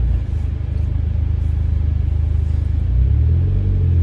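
Low, steady engine and road rumble of a car heard from inside its cabin, growing a little louder about three seconds in.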